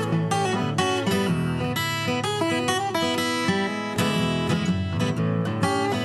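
Acoustic guitar music, picked and strummed in a quick run of notes.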